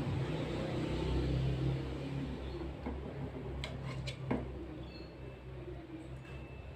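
Metal spatula scraping and knocking against a metal wok as braised fish is scooped onto a plate. There are a few sharp knocks about four seconds in, over a low steady hum.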